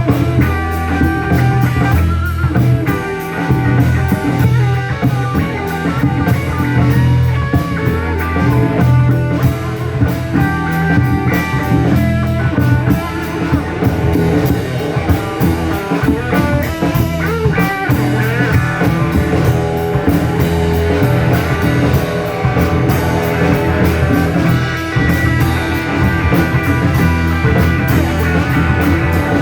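Rock band playing live, with guitar notes held over a steady drum kit beat and bass.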